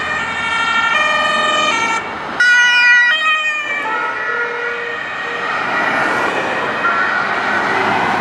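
Two-tone sirens (Martinshorn) of German emergency vehicles on an emergency run, the pitch switching back and forth between two notes about every half second. About two and a half seconds in the sound jumps abruptly to a louder siren, which then sinks back under the noise of traffic and engines.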